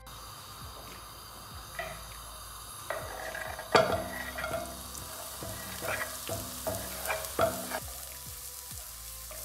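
Diced red onion tipped from a wooden board into hot olive oil in a nonstick pan and sizzling, with a sharp knock a little under four seconds in as the board meets the pan. A wooden spoon then stirs it, knocking and scraping against the pan several times.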